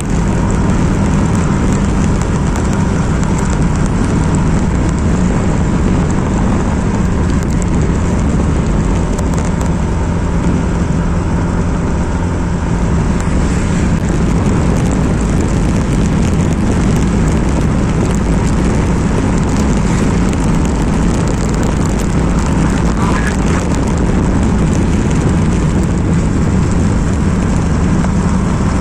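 Motorcycle riding at a steady pace, its engine running under a constant rush of wind and road noise.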